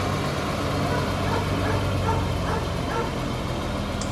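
A dog barking repeatedly, a quick run of short barks starting about a second in, over the steady hum of an idling truck engine.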